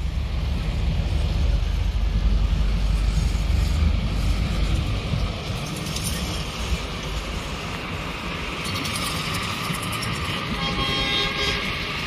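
Steady outdoor road noise with a heavy low rumble, and a vehicle horn sounding for about a second near the end.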